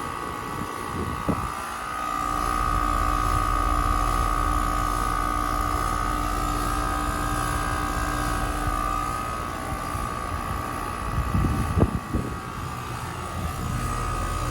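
2023 Carrier Sentry 2-ton heat pump running in cool mode just after startup: compressor hum and condenser fan with a steady whine on top, getting louder about two seconds in. A couple of brief knocks, one near the start and one near the end.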